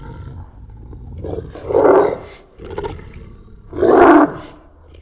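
Golden retriever puppies' play-fight growls, slowed down so they sound like deep roars. Two loud drawn-out growls come about two seconds and four seconds in, over a low rumble.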